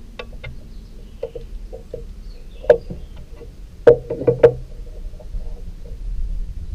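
Wooden knocks and clicks as oak liner blocks and a small wooden marking jig are set down and shifted on a chipboard workbench. There are light taps at first, then one sharp knock a little before three seconds in and three more in quick succession about a second later.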